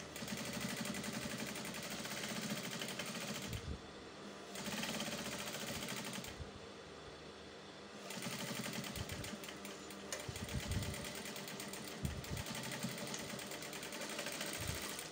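Industrial straight-stitch sewing machine stitching through the folded waistband of a cotton skirt. It runs in three spells and stops briefly twice between them, as the fabric is repositioned.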